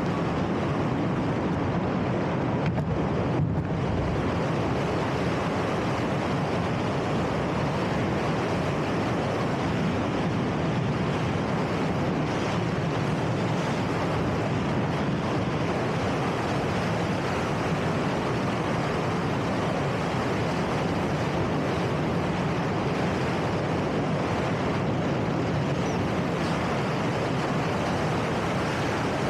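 Steady rush of wind over the microphone of a camera mounted on a hang glider in flight, the airflow of the glider's descent buffeting the mic without a break.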